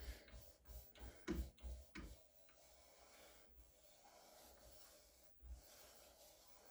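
Hand engraving on a metal gun part: faint light taps, about three a second, for the first two seconds, then faint scraping.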